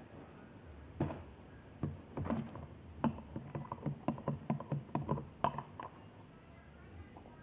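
Hands tapping and knocking close to the microphone: a quick, uneven run of taps, about four a second at its busiest, starting about a second in and stopping about six seconds in.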